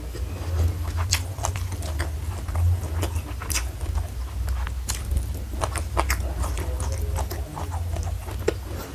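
Close-miked chewing of crunchy food: a person's mouth biting and crunching, with irregular sharp wet clicks several times a second.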